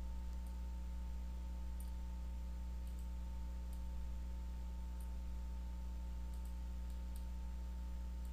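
Steady low electrical hum with a few faint, sharp computer mouse clicks at irregular intervals, as vertices are click-dragged in a 3D modelling program.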